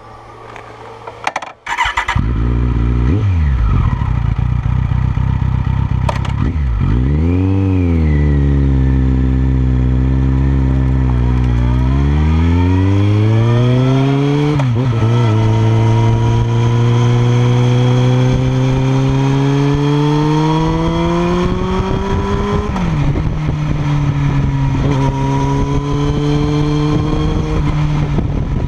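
Kawasaki ZX-14R inline-four through a Yoshimura R77 exhaust, heard close to the silencer. Low and quiet for the first second or two, it then opens up, the exhaust note rising and dipping with the throttle before climbing steadily. It drops sharply in pitch about halfway and again about three quarters in, then runs on steady.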